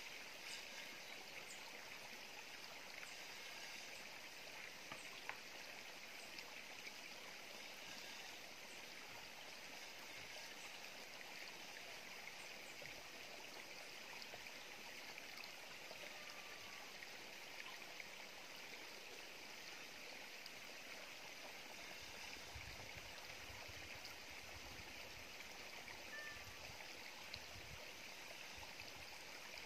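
Faint, steady rushing background noise with a few light clicks; low rumbling gusts come in over the last several seconds.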